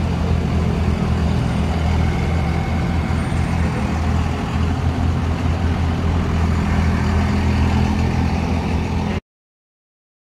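Engines of lifted pickup trucks running as the trucks creep past, giving a steady low rumble. The rumble cuts off abruptly about nine seconds in.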